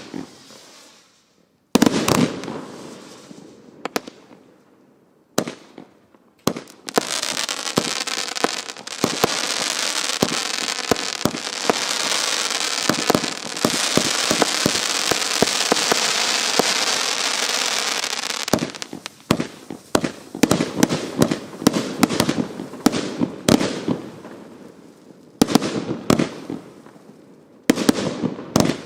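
A 72-shot compound firework barrage cake, the Evolution Fireworks Prometheus, firing. First come a few separate shots several seconds apart. About seven seconds in, a dense, steady crackling hiss starts and lasts about eleven seconds. Then comes a quick run of sharp bangs and pops, with further shots near the end.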